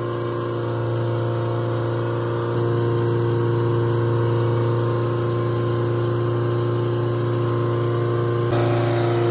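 Boatyard travel lift's engine running steadily under load as it carries a boat, a constant hum with a few steady tones. It gets a little louder about two and a half seconds in and shifts again near the end.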